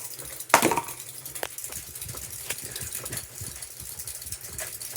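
Harbor Breeze Port Severn ceiling fan running off balance after losing blades, with a steady low hum and irregular rattling and ticking as it wobbles. There is a sharp knock about half a second in and a smaller one about a second and a half in.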